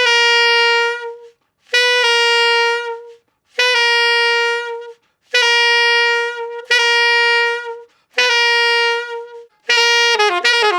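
Alto saxophone playing a held G about seven times, each note begun with a quick grace note from G sharp, a half step above, and gliding smoothly down. Each note lasts about a second and a half, and the entries come a little closer together. Near the end a quick run of falling notes starts.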